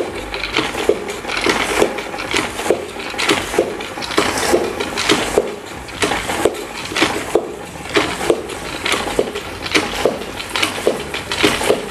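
A push-handle spin mop is pumped fast in its bucket's spinner basket, giving a rapid run of plastic clacks from the handle mechanism, a few a second, as the wet mop head spins at speed and its water is wrung out.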